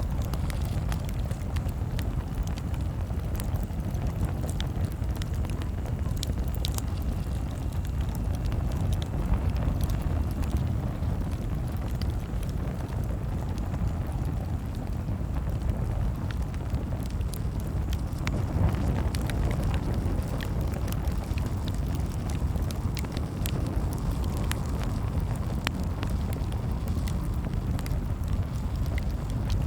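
Campfire crackling, with scattered sharp pops and snaps over a steady low rumble.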